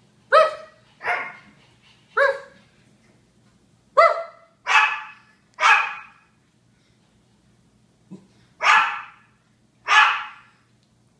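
Japanese Chin barking: eight sharp barks in three bunches, three, then three, then two a little further apart.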